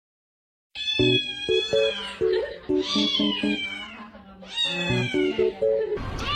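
Domestic cat meowing: several long, drawn-out meows that bend in pitch, over background music of short stepped notes. The sound starts abruptly under a second in after dead silence, and near the end it cuts to another meow against a noisy background.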